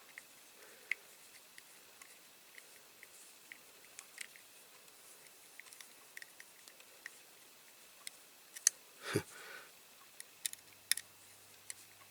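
Small screw being driven into a die-cast toy car's base plate with a magnetic screwdriver: faint, scattered metal clicks and scrapes, with a louder knock about nine seconds in.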